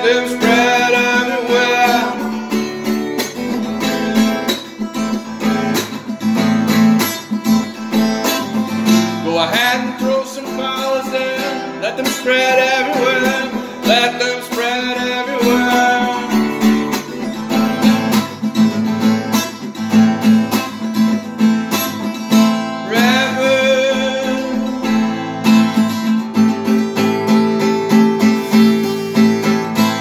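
Acoustic guitar strummed steadily, with a man singing over it in stretches.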